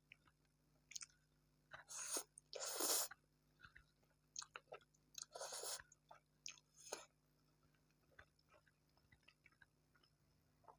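Close-miked eating of fried instant noodles and tempura: soft chewing and wet mouth clicks, with a few louder noisy bite-and-chew bursts, the loudest about three seconds in.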